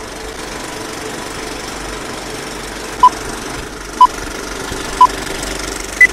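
Old film projector running steadily under a film-leader countdown: three short beeps a second apart, then a fourth, higher beep a second later.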